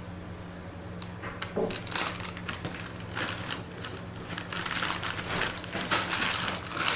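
Dry kasuri methi (dried fenugreek leaves) rustling and crackling as it is handled by hand and added to a bowl of masala. Irregular small clicks grow into a denser crackle in the second half, over a steady low hum.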